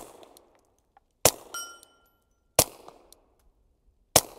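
Four suppressed shots from a Ruger 22/45 Lite .22 pistol fitted with an Aklys Defense Kopis suppressor, evenly spaced about a second and a quarter apart. A steel target rings briefly just after the second shot.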